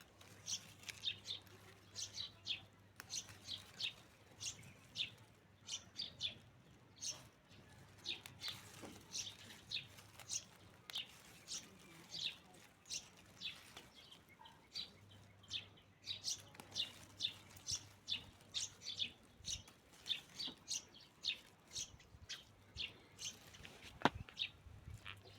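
Small birds chirping: short, high calls repeated about twice a second, with a faint low hum that comes and goes and a single sharp click near the end.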